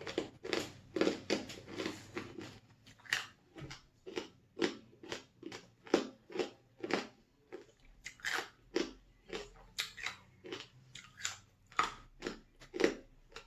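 Crunching and chewing on crispy pork rinds, a crunch about every half second.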